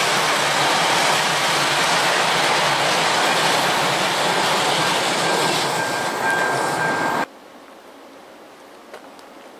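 Loaded freight wagons rolling past on a curved track: a steady rumble and rattle of wheels on rail, with a thin steady squeal in the last two seconds. The sound cuts off abruptly about seven seconds in, leaving only quiet outdoor air.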